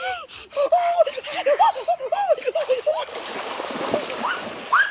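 A quick run of short, high, rising-and-falling whimpering calls, then, about three seconds in, steady splashing of water as a person wades through a shallow stream.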